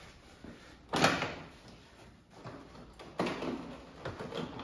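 Plastic rear bumper cover of a Honda Pilot being pulled off the body by hand, its retaining tabs letting go with two loud pops about two seconds apart, the first the loudest, and a smaller one near the end.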